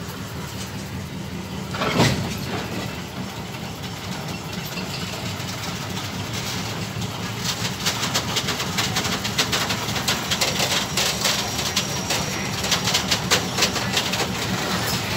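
D9E diesel locomotive's engine running steadily at low revs as it moves slowly with a string of covered goods wagons. A single loud clank about two seconds in, then from about halfway a rapid run of clicks and rattles from the rolling wagons.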